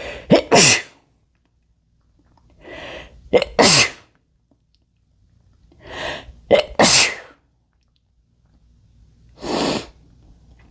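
A man sneezing three times, about three seconds apart, each sneeze preceded by a sharp in-breath. Another in-breath comes near the end as the next sneeze builds.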